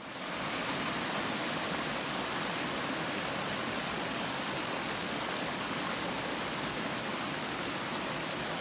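Small mountain creek splashing over rocks below a thin waterfall: a steady, even rush of running water.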